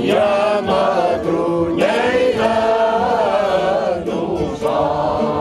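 A choir singing a cante alentejano, several voices together in long held phrases, with short breaks between them.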